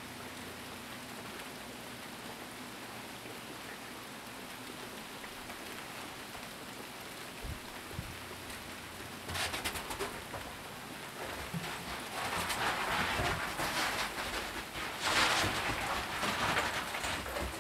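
Freezing rain falling steadily during an ice storm: an even hiss of rain on ice-coated trees and the deck. From about halfway through, louder irregular crackling comes in bursts and grows strongest near the end.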